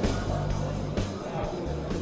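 Background rock music with bass notes and a drum beat.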